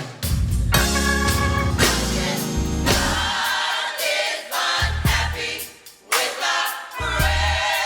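Youth gospel choir singing with a live band, drums and bass keeping a steady beat; the voices grow fuller in the second half.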